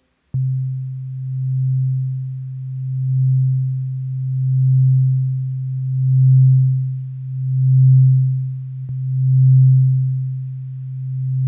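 Synthesized sine tone from Ableton's Operator synth, held at one low pitch and swelling up and down in volume about every one and a half seconds as a slow LFO modulates its level. The swells grow a little stronger toward the end.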